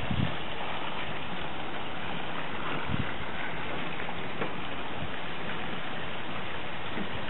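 Steady splashing of a small cascade pouring from a wall spout into a shallow garden pond.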